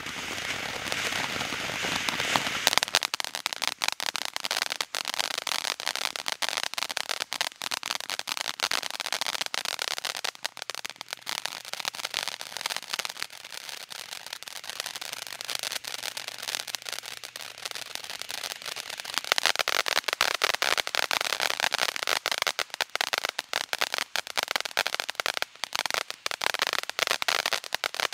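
Ground fountain firework, Red Rhino's 'Hey There', spraying sparks: a steady hiss for the first few seconds, then dense, continuous crackling from its crackle effects. The crackling grows louder about two-thirds of the way through.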